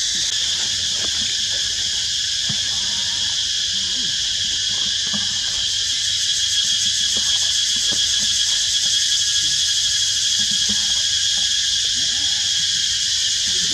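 A steady, high-pitched insect chorus: a dense shrill buzzing that holds at one level, with faint scattered ticks beneath it.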